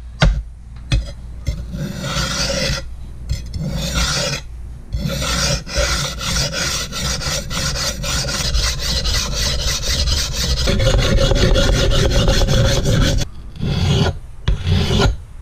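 Hardened leaf-spring steel spearhead being sharpened on a wet whetstone, rasping in quick, even back-and-forth strokes with a few short pauses, putting an edge on the freshly quenched blade.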